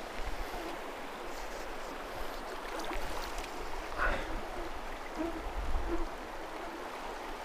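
Steady rushing of river water flowing through rapids.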